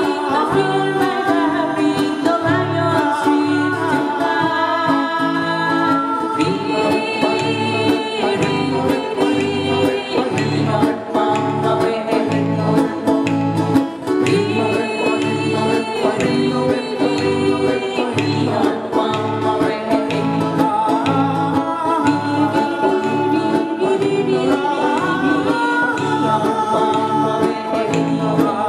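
A live acoustic guitar band playing a song: several acoustic guitars strumming a steady rhythm under sung vocals, with more than one voice singing.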